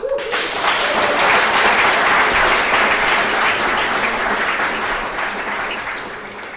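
Audience applauding, breaking out suddenly right after the talk's closing "thank you" and fading gradually over the last few seconds.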